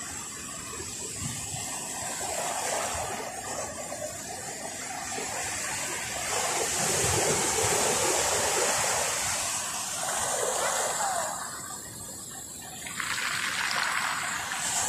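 Sea waves breaking and washing up over a pebble beach, the rush of water swelling and ebbing every few seconds.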